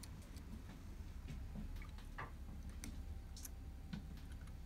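Faint, irregular small clicks as a sewing-machine needle held in thin-nose pliers is worked up into an embroidery machine's needle bar.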